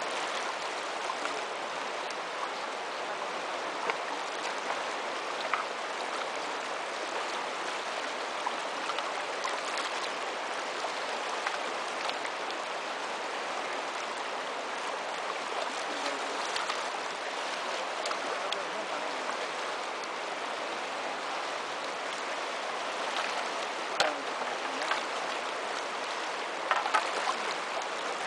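Fast river running over rocks: a steady rush of flowing water, with a few short sharp clicks or knocks, the loudest near the end.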